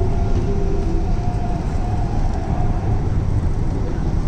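Inside a Hyderabad Metro electric train carriage running at speed: a steady low rumble of wheels on track, with a faint whine that dies away about halfway through.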